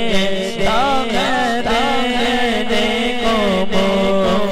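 Male voice singing a naat, an Urdu devotional poem in praise of the Prophet, into a microphone with a wavering, ornamented melody over a steady held drone.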